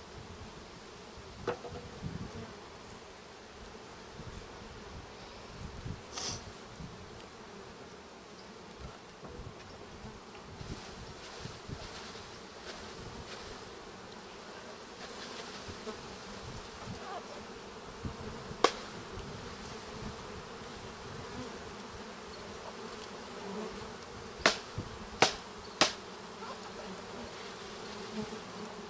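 Honey bees from the packages buzzing steadily in large numbers around the hive. Several sharp knocks sound over it, the loudest a single knock past the middle and three in quick succession near the end.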